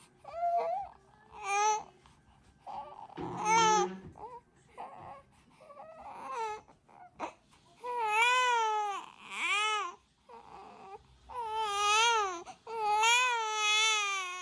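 Young infant crying: short fussy cries at first, then long rising-and-falling cries in the second half.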